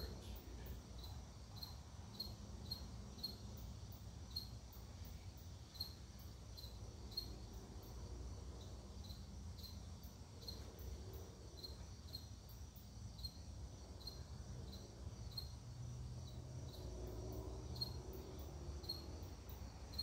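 Hunter Original ceiling fan's oil-bath motor running at the lowest setting of a variable speed control: a faint, steady low hum with faint high ticks about twice a second.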